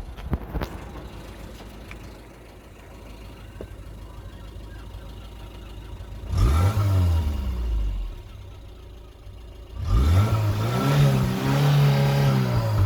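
Talbot Express engine idling, then revved twice: pitch rises and falls about halfway through, and a second, longer rev is held before dropping back near the end. It runs evenly with no misfire, now that it is warm.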